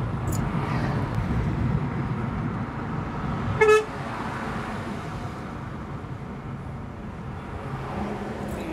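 Steady road and engine rumble heard from inside a moving car in highway traffic, with one short, loud vehicle horn toot about three and a half seconds in.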